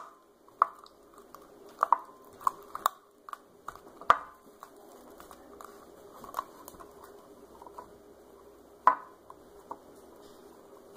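A plastic spoon stirring slime in a plastic cup, with irregular clicks and taps as it knocks against the cup, the loudest a little after four seconds and near nine seconds in. The slime is being mixed to work dye through it.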